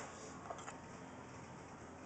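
Quiet room tone with one faint tap about half a second in: the handheld camera being set down on a surface.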